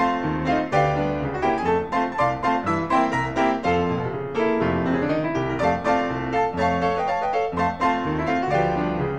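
Piano music, a quick run of struck notes.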